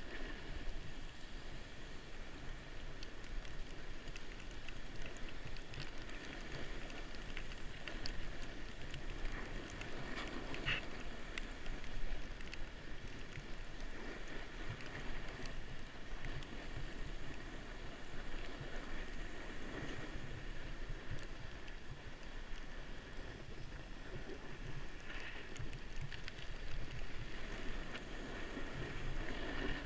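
Steady hiss and scrape of snow under a rider sliding down a groomed ski slope, with wind rushing past the microphone.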